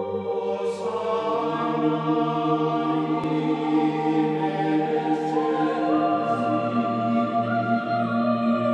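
Background music of slow, sustained chords that change every few seconds.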